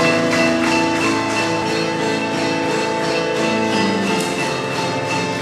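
Live music from a small group of players together: a steady beat under held pitched notes that change every second or so.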